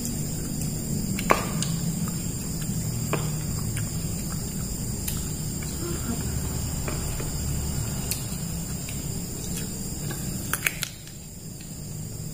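Small clicks and taps of people eating by hand from plastic bowls, one sharper click about a second in, over a steady low background hum and a high insect-like chirring.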